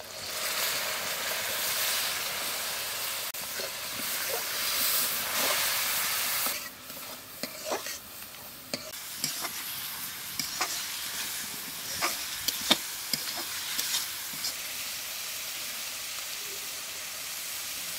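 A wet spice paste of ground onion, ginger-garlic, cumin, coriander, chilli and turmeric sizzling in hot oil in a steel kadai. The sizzle is loud for about the first six seconds, then drops as the masala fries down, with a metal spatula clicking and scraping against the pan. A steady, quieter sizzle continues near the end.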